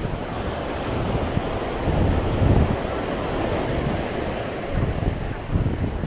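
Surf washing on a sandy beach, with wind buffeting the microphone in irregular low gusts, the strongest about two and a half seconds in.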